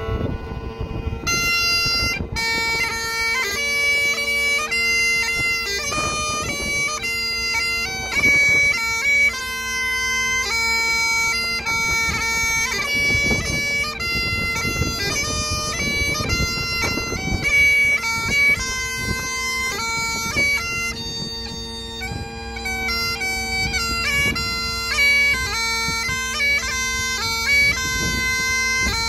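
Bagpipes played solo: a melody of stepping notes over a steady, unbroken drone.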